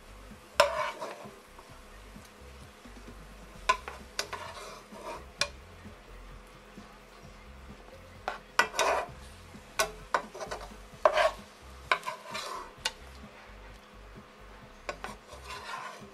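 A metal slotted spatula scraping and tapping in a non-stick frying pan and against a plate as sautéed spinach, mushrooms and onions are scooped out. The sounds come as scattered short strokes with pauses between them, the sharpest about half a second in.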